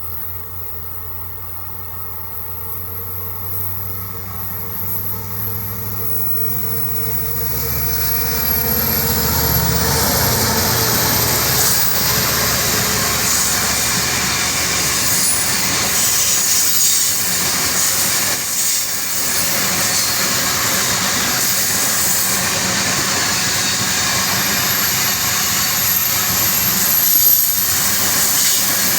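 Diesel-electric locomotives of a heavy iron ore train approaching, their engine hum growing louder over the first eight seconds or so, then the loud steady noise of the train passing close, wheels running on the rails with a faint high squeal.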